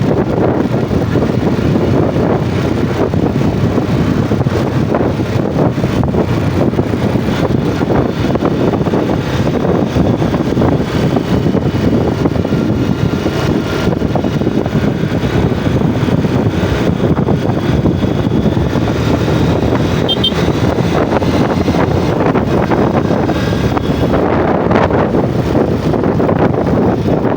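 Yamaha Jupiter MX motorcycle running steadily while being ridden, its engine sound mixed with a constant rumble of wind on the microphone.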